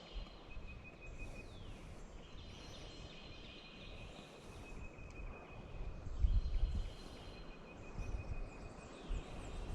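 Pine woods ambience: a bird sings a thin high trill again and again, with a low rumble about six seconds in.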